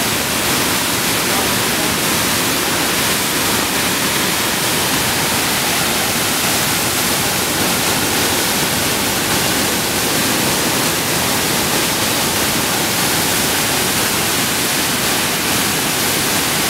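Floodwater of the New Haven River pouring over Bartlett Falls in a loud, steady rush, the river swollen by hurricane rain.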